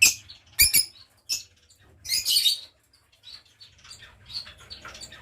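Lovebirds giving short, shrill, high-pitched squeaky calls, with one longer burst of calling about two seconds in. A couple of sharp clicks come just under a second in.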